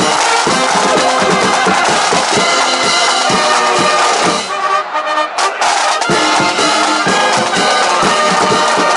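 Brass band with drums playing, horns over a steady beat of drum strikes; the music breaks off briefly about halfway through, then resumes.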